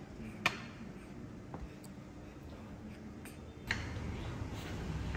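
A few faint, light clicks of a metal fork against a ceramic dish while cooked sweet potato is cut into pieces. A low steady hum comes in about three and a half seconds in.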